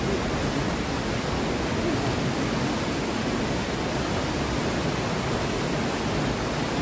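Steady rush of fast river water pouring over a standing surf wave.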